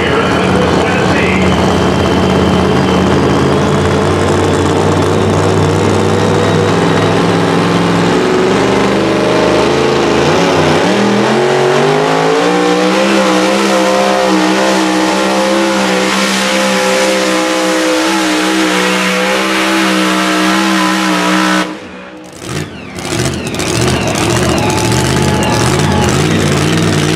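Supercharged engine of a two-wheel-drive pulling truck running hard through a pull. Its note holds steady, dips about ten seconds in, climbs back and holds high for several seconds, then cuts off suddenly a little past twenty seconds in as the pull ends.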